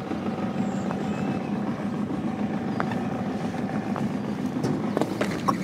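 Boat motor running steadily, a low drone with a faint held tone above it. A few faint ticks come through, and there is a sharper knock near the end.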